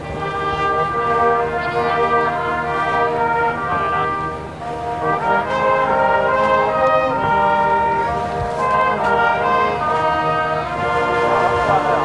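Brass band playing a slow tune in long held chords, with a brief lull about four and a half seconds in.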